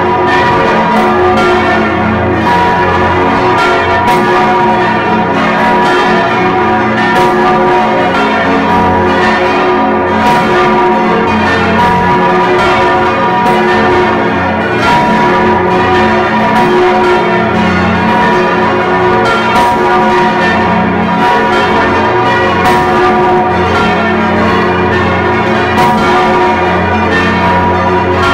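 Large swinging church bell, the Stephanus bell, ringing close up in its belfry. Repeated clapper strikes over a continuous wash of overlapping bell tones. The sound is recorded through sound damping.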